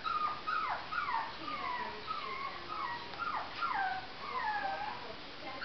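Jack Russell terrier puppy whining, a string of short high-pitched whines that mostly fall in pitch, about two a second, as it begs to have the ball back.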